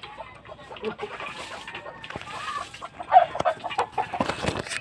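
Chickens clucking, with short calls scattered through and the loudest ones about three seconds in.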